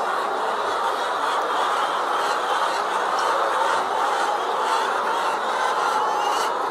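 A large flock of caged laying hens clucking and calling all at once: a steady mass of many overlapping calls with no break.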